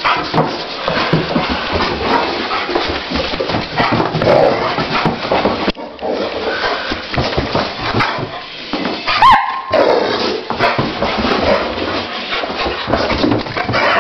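Rottweiler making rough, continuous vocal noises as it charges about in a frenzy of play, with scuffling throughout and one short, high cry about nine seconds in.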